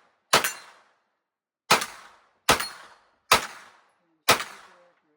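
Five single shots from a Smith & Wesson M&P FPC 9mm carbine, fired at irregular intervals of about a second, each a sharp crack that trails off quickly.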